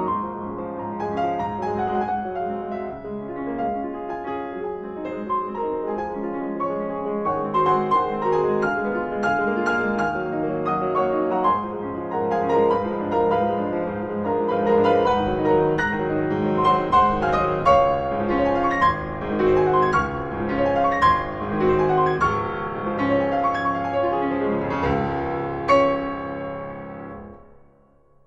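Solo piano music, many sustained notes, fading out shortly before the end.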